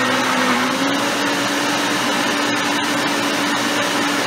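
Electric countertop blender running steadily, blending carrot cake batter. Its motor hum rises slightly in pitch about a second in.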